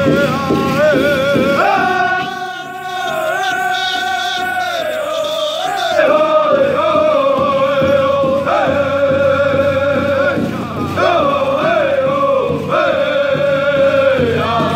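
Powwow drum group singing a song in unison, men's voices with women's voices joining, over a large powwow drum struck by several drummers in a steady beat.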